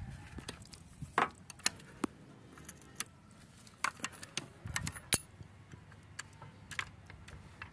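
A series of irregular sharp metallic clinks from hand tools: a deep socket on a breaker bar knocking on and fitting over the wheel's lug nuts, then steel on steel as the floor jack's handle is handled.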